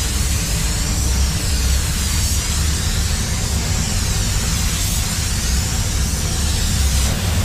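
Paint spray gun hissing steadily as it atomizes paint onto a car body, the hiss wavering slowly, over a steady low rumble.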